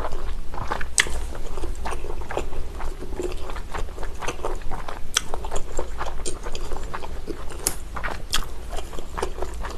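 Close-miked eating of chewy garaetteok rice cakes and cabbage kimchi: irregular wet chewing clicks, smacks and crunches. A low steady hum runs underneath.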